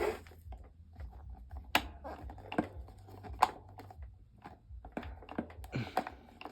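Handling noise: scattered light clicks and taps, with three sharper clicks in the middle, over a low steady hum.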